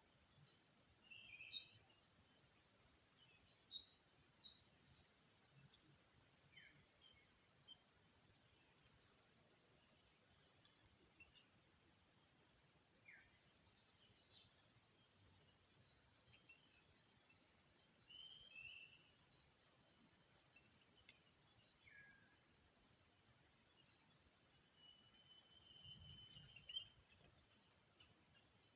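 Steady high-pitched insect chorus, with a short, sharp high bird call four times, about every five to six seconds, and a few faint chirps between.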